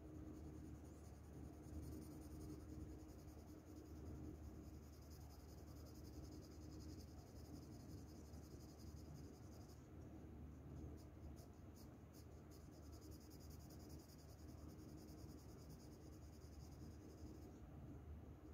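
Faint scratching of a graphite shading pencil on paper as it lays down shading strokes, breaking into a run of short quick strokes about halfway through.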